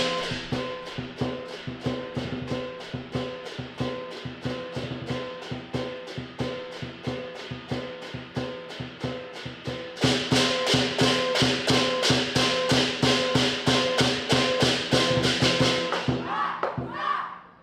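Southern lion dance percussion: a large drum, cymbals and gong playing a steady beat of about three or four strokes a second. It gets louder about ten seconds in and drops away near the end.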